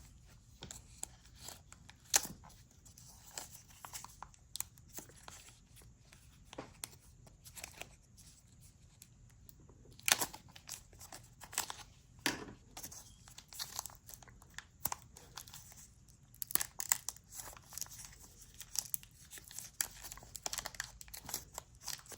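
Plastic packaging of small camera accessories being torn and crinkled by hand, a struggle to get it open: irregular crackles and sharp clicks, louder about two, ten and twelve seconds in.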